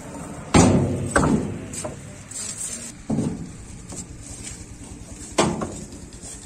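Precast concrete poles knocking against one another as they are handled and stacked by hand: heavy clunks, two close together in the first second or so, another about three seconds in, and a last one near the end.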